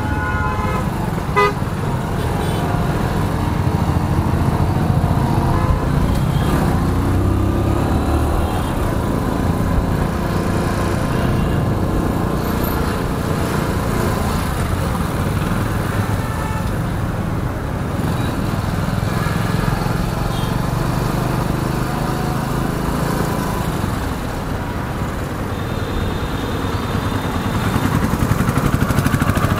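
Motorcycle engine running at riding speed through city traffic, a steady rumble with road noise, and vehicle horns honking now and then, most clearly about a second in.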